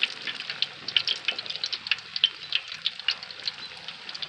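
Battered walleye frying in hot grease in an electric skillet: a steady sizzle with frequent sharp pops and crackles.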